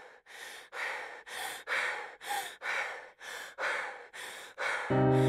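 A person breathing hard in quick, rhythmic breaths, about two and a half a second, growing louder. Near the end a sustained low music chord comes in over them.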